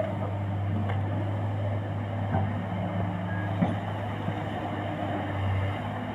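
Komatsu hydraulic excavator's diesel engine running steadily with a low hum, with a few light knocks.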